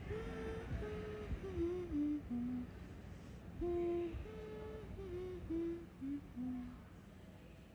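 A woman's voice humming a slow tune in held, stepped notes, a falling phrase heard twice.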